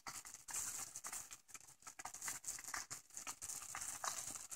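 Frozen meatballs and chopped vegetables sizzling softly in a little chicken stock in a cast iron stew pot, a steady hiss with small irregular crackles.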